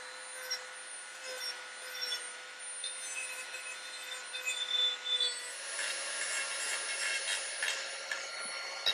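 Dremel rotary tool with a sanding drum running at high speed and sanding the wooden bill of a decoy, a steady whine that grows louder and rougher about halfway through.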